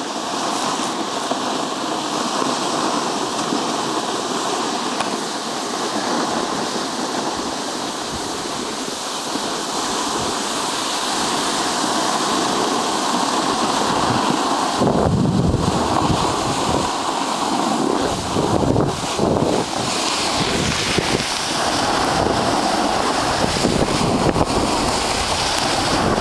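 Wind rushing over a camcorder microphone, a steady noisy roar that turns gustier and more buffeting about halfway through.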